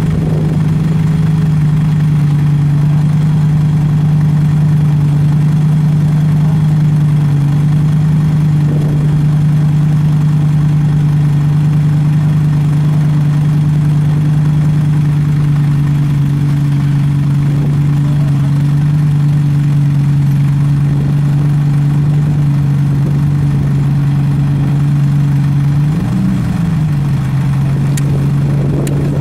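A vehicle engine idling steadily at an even pitch, with a short rise in pitch about 26 seconds in.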